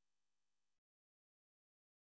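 Near silence: a very faint steady hiss that cuts off suddenly under a second in, leaving dead digital silence.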